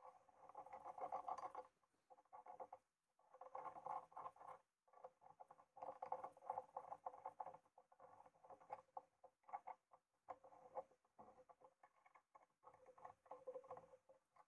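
Faint metallic clicking and scraping as stainless steel screws are threaded and tightened with a hex key to mount a stainless steel jaw plate on a bandsaw vise. It comes in stretches with short pauses.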